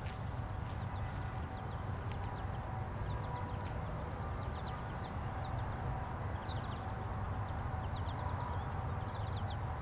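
Federal Signal 2001-series outdoor warning siren sounding its steady alert tone, faint, swelling and fading as the rotating siren turns. Small birds chirp throughout over a steady low rumble.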